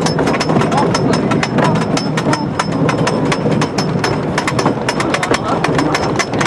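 Custom Coasters International wooden roller coaster train cresting its lift hill: rapid, even clacking of the lift and anti-rollback ratchet over the rumble of the train on the wooden track.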